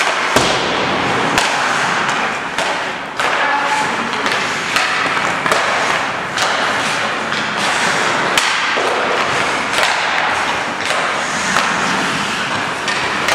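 Ice hockey drill: a steady hiss of skate blades scraping the ice, with sharp knocks about once a second from sticks hitting pucks and pucks striking the boards.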